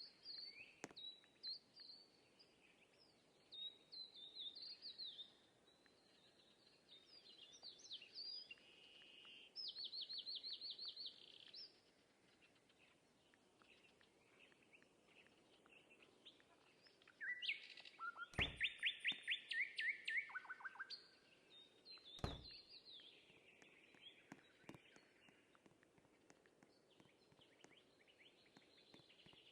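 Songbirds chirping and singing, with rapid trills of repeated notes, one of them the loudest sound about two-thirds of the way through. Two dull thumps stand out, about four seconds apart.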